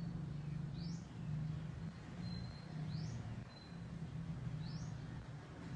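Short rising bird chirps, one about every two seconds, over a low steady hum.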